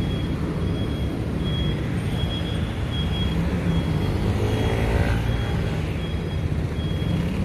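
Steady low road-traffic rumble with a short, high beep repeating about every three-quarters of a second, and a brief rising whine about five seconds in.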